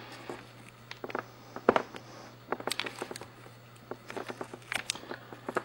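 Small, irregular clicks and taps as fingers push a laptop display's video cable connector into its socket on the back of a replacement LED panel and work it into place.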